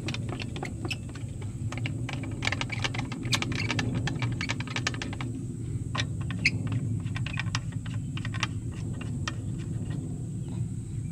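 Quick small clicks and light rattles as the fuse box cover on a Rolls-Royce 20/25 is fitted and its knurled thumb screws turned by hand. The clicks come thick and fast for the first five seconds, then thin out and stop near the end, over a steady low rumble.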